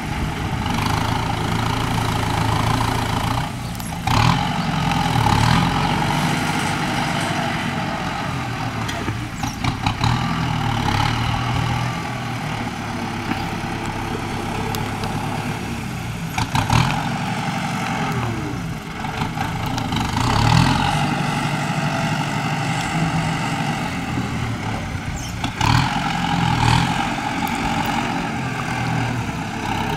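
Kubota tractor's diesel engine working under load as it pushes loose soil with its front blade, the engine note rising and falling as it works. A few sharp clanks come from the tractor and its implements.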